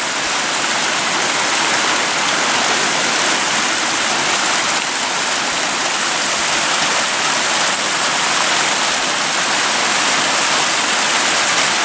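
Small mountain creek running and splashing down a little cascade over rocks: a steady rush of water, slightly louder after the first couple of seconds.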